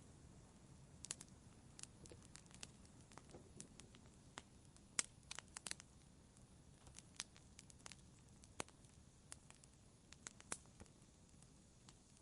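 Wood fire crackling: irregular sharp snaps and pops, a few a second at times, over a faint low hiss, with the loudest pop about five seconds in.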